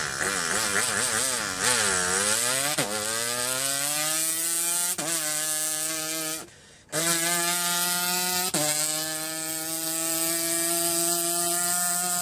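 A man's vocal imitation of a racing motor engine revving up through the gears: a buzzing, engine-like hum that wavers at first, then climbs slowly in pitch and drops suddenly at each gear change, about four times, with a brief break for breath about halfway through.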